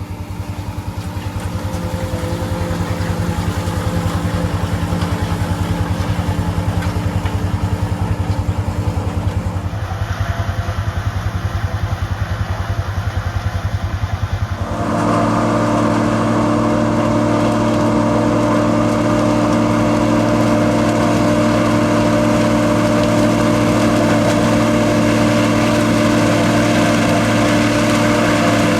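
John Deere 4440's turbocharged six-cylinder diesel engine running steadily under load, powering a forage harvester chopping corn. The sound fades in at the start, and about fifteen seconds in it changes abruptly to a fuller, slightly louder running.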